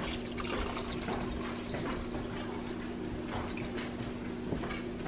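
Fresh goat milk poured in a steady stream through a stainless steel funnel into a glass mason jar, the jar filling.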